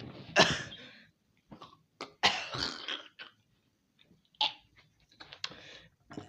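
A person coughing in a fit of harsh, irregular coughs that they can't stop, the longest cough a little over two seconds in.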